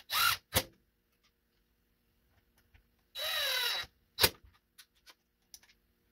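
A small electric motor running in two short bursts: a brief spin-up at the start, then a longer run a little over three seconds in whose pitch falls as it slows. Each burst is followed by a sharp click, with a few light ticks and handling sounds between.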